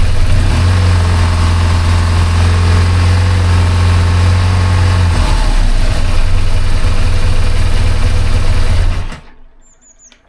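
BMW R1200GS flat-twin boxer engine idling steadily with its throttle bodies freshly synchronized, then cutting off abruptly about nine seconds in as it is switched off.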